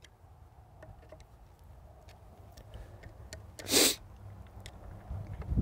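Faint metal clicks of a flat-tip screwdriver working the brass test-cock screws on a reduced-pressure backflow preventer, under a low rumble. One short, loud hiss cuts in about two-thirds of the way through.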